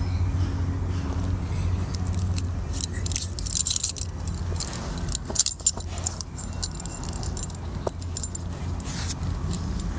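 Small metal objects jingling and clinking over a steady low hum, busiest between about three and six seconds in.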